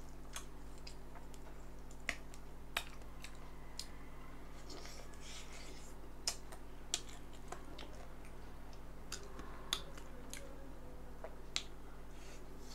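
Close-miked mouth sounds of eating chicken feet: sharp, irregular smacks and clicks of lips, tongue and teeth, with softer wet chewing between them.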